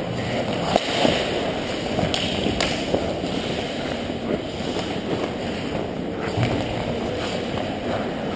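Ice hockey play around the net: skates scraping the ice and several sharp clacks of sticks and puck in the first few seconds, over a steady rushing noise.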